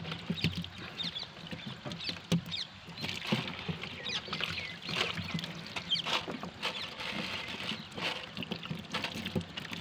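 Handfuls of small wet fish being scooped and let fall back into a plastic crate: a soft, irregular wet pattering and slapping with scattered clicks.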